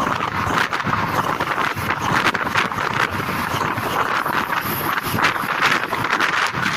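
Rush of wind on the microphone of a phone held out of a moving bus's window, over the bus's road noise at speed, with irregular buffets and rattles throughout.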